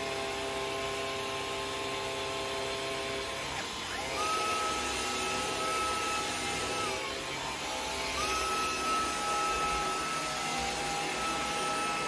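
Cordless stick vacuum cleaner running with a steady motor whine. The whine steps up in pitch about four seconds in, drops briefly near seven seconds and rises again about eight seconds in.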